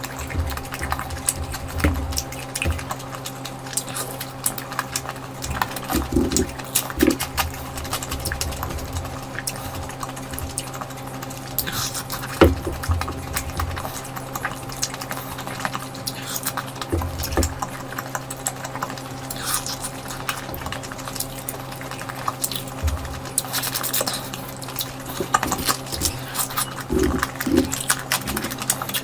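Close-up wet eating sounds of curry: many small irregular squishes, smacks and clicks of food being mixed and chewed, over a steady electrical hum.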